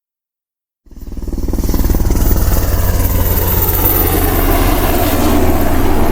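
An engine running steadily, cutting in abruptly out of silence about a second in and holding at a constant level.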